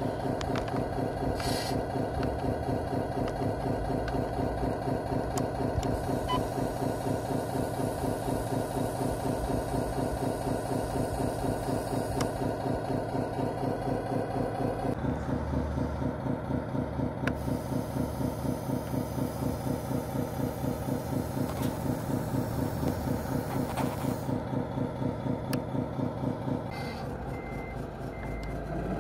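Electronic sound of a radio-controlled model truck's sound module, a pulsing, beeper-like truck noise in a fast even rhythm as the model low-loader's ramps are lowered. It gets quieter and changes about halfway through, once the ramps are down, and three short high beeps sound near the end.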